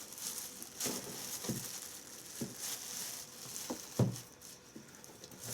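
Drill press parts being handled during assembly: a few separate knocks and clunks, the loudest about four seconds in, over a light rustle of packaging.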